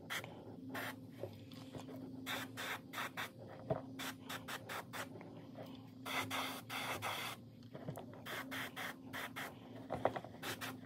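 Airbrush spraying pearl lime paint onto a lure blank in many short spurts, each a fraction of a second, with one longer spray of just over a second about two thirds of the way through. The paint flow on the airbrush is turned well down.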